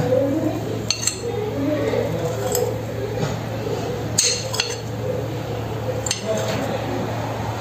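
Metal fork clinking and scraping against a ceramic plate as a soft cake is cut into, a few sharp clinks spread out over a steady low hum.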